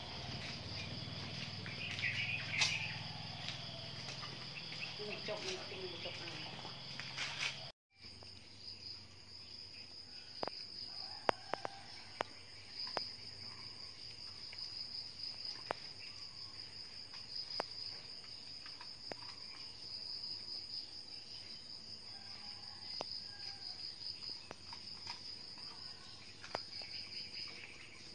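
Insects trilling steadily at a high pitch, with a few scattered sharp clicks. The sound drops out briefly about eight seconds in and then the trilling carries on.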